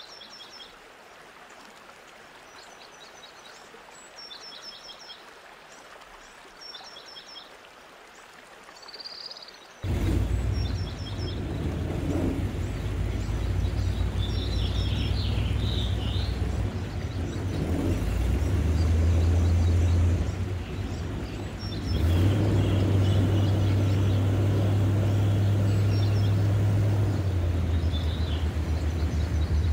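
For the first ten seconds a bird repeats short high chirps against a quiet marsh background. Then an airboat's engine starts up suddenly with a loud, steady low drone that shifts in pitch and level a couple of times, while bird calls carry on over it.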